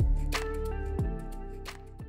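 Background music with held notes, fading out near the end.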